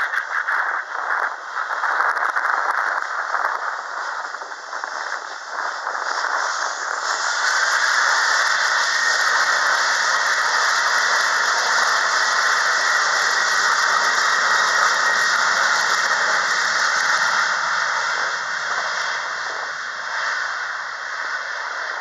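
A Boeing 737-800's CFM56-7B turbofan engines run up to takeoff thrust on the takeoff roll. The rushing jet noise builds about seven seconds in, with a rising whine as the engines spool up, stays loud and steady, then eases off near the end as the aircraft accelerates away down the runway.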